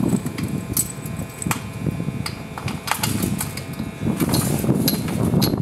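Light clinks and knocks of an aluminium tube frame being handled during dismantling, with a few brief metallic rings, over a steady low rumbling noise.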